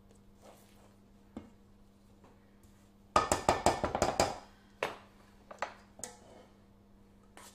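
Kitchen utensils clinking against a stainless steel mixing bowl of cake batter: a quick run of sharp taps about three seconds in, then a few single clicks.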